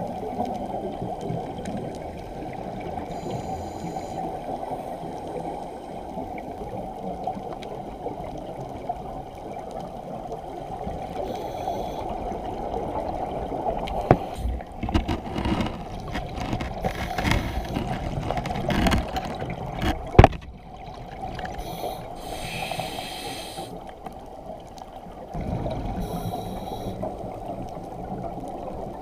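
Muffled underwater noise picked up through an action camera's waterproof housing during a scuba dive, steady and dull. Irregular bumps come through the middle, with a single sharp knock on the housing about two-thirds through, and brief hissing bursts after it.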